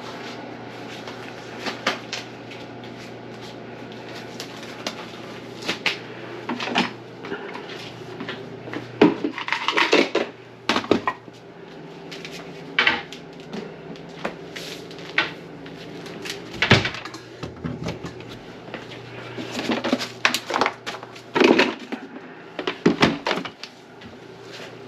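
Irregular knocks and clatters of cupboard doors and objects being handled and set down, over a steady low hum.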